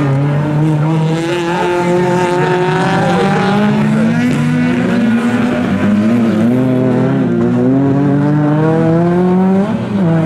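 Several autocross race cars' engines revving hard at once, their pitches rising and falling as the drivers accelerate and lift through a bend on dirt; one engine drops and climbs again near the end.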